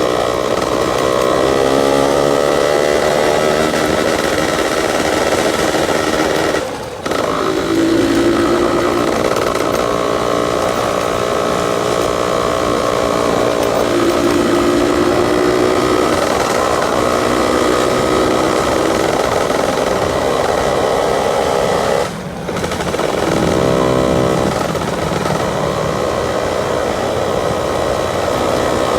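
Yamaha F1ZR 110 cc two-stroke motorcycle engine running on light throttle, its growling exhaust note rising and falling in pitch. The sound drops briefly twice, about seven seconds in and again about twenty-two seconds in.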